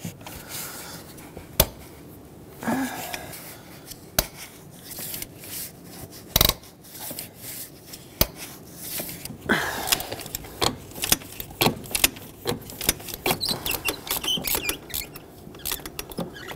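Ratchet turning a spark plug socket on an extension to back a freshly loosened spark plug out of its threads: scattered sharp ratchet clicks, turning into runs of rapid clicking in the second half.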